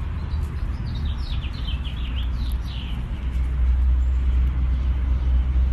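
Birds chirping, with a quick run of short falling chirps about one and a half to three seconds in, over a loud steady low rumble that grows a little stronger in the second half.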